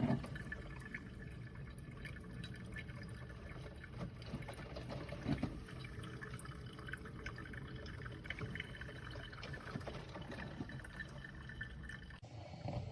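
Drip coffee maker brewing: liquid trickling and dripping steadily, with small irregular drips, until it cuts off abruptly near the end.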